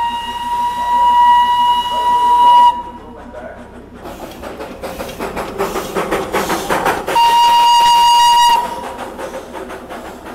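Steam whistle of a Darjeeling Himalayan Railway toy-train steam locomotive, blown twice: a long blast, then a shorter one about seven seconds in. Between the blasts the locomotive hisses and chuffs steam as it rolls into the station.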